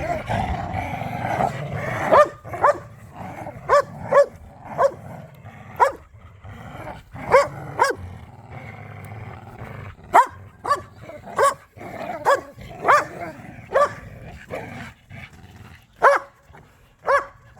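Dogs in rough play, a low continuous growl for about the first two seconds, then a long run of short, sharp barks at irregular intervals, some in quick pairs.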